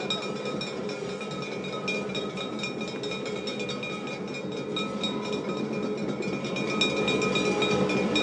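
Hayashi accompaniment of a snake dance: percussion beaten rapidly and without pause, over a steady metallic ringing tone. It grows a little louder near the end.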